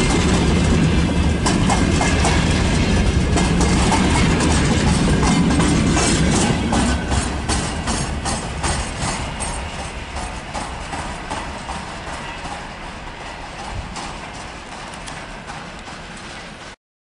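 Freight train wagons rolling past close by, their wheels clattering over the rail joints with many sharp clicks. The last wagon passes about six seconds in and the clatter fades as the train pulls away, then stops abruptly near the end.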